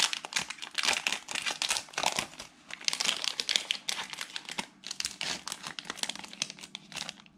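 Plastic wrapper of a trading-card pack crinkling as it is handled and opened, a dense, irregular run of crackles that comes and goes.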